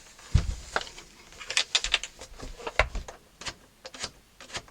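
Hohner Arietta accordion being handled with a couple of low thumps, and a run of short sharp clicks as its treble coupler (register) switches are worked in turn. The switches have just been freed of their stiffness. No reeds are sounding.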